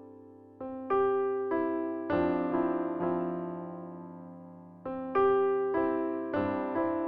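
Background music: a soft, slow electric piano melody, single notes and chords struck every half second or so and left to ring out.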